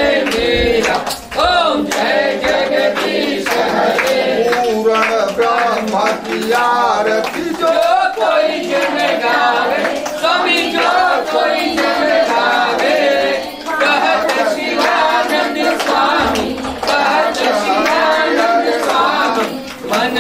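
A group of voices, a man's among them, singing a devotional aarti song without instruments, with scattered hand claps.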